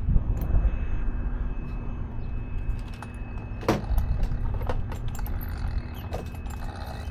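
Small clicks and rattles of the RC truck's front drivetrain parts being handled during an inspection for a missing drive pin, with a few sharper clicks spread through, over a steady low rumble and a faint steady hum.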